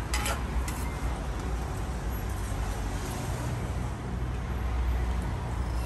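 Steady low rumble of street traffic, with a brief clatter a fraction of a second in.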